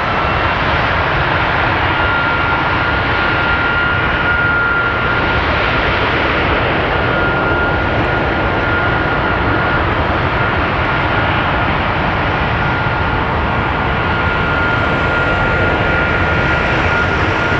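Boeing 757-200 freighter's turbofan engine on a ground run-up at high power: a loud, steady jet roar with a high whine that finishes climbing in pitch just as it begins, then holds steady.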